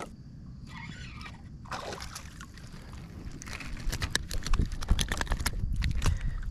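Handling noise as a small bass is unhooked by hand over a kayak: scattered clicks and taps, with a low rumble that grows louder about halfway through.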